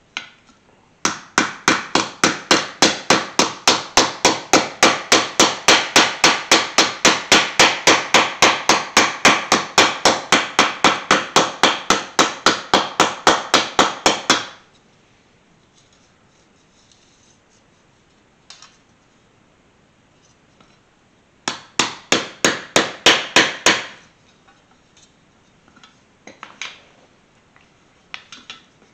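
Body hammer tapping on a dented metal trim strip held on a wooden block, straightening the dents: a fast, even run of light blows, about four a second, for some thirteen seconds. After a pause with a single tap, a shorter run of taps comes about twenty-two seconds in, then a few scattered taps.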